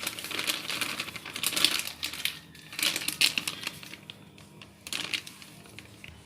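Plastic packet of coarse gram flour (besan) crinkling and rustling in several crackly bursts as it is handled.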